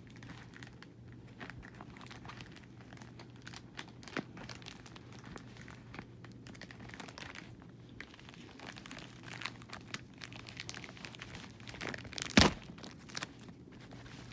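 Plastic wrapping on a DVD case crinkling and tearing as it is unwrapped, with many irregular small clicks and one loud sharp snap about twelve seconds in, over a steady low hum.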